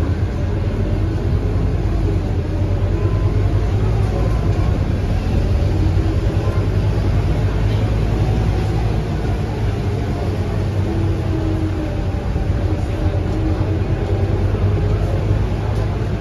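Interior running noise of a Scania K230UB single-deck bus, its five-cylinder diesel engine and drivetrain giving a steady low rumble with a whine that rises and falls as the bus drives. Rain and tyre noise from the wet road mix in.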